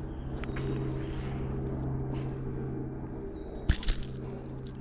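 A steady low hum runs throughout. About three and a half seconds in come two sharp knocks, the louder first, from handling noise on a body-worn action camera.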